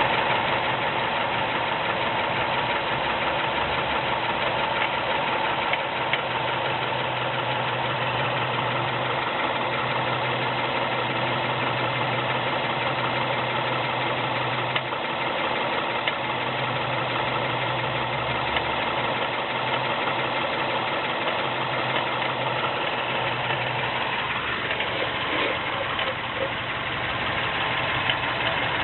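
Mazda 3 MPS's turbocharged 2.3-litre four-cylinder engine running steadily at idle, with a low hum that comes and goes every second or two. It is the strange noise the owner is trying to find.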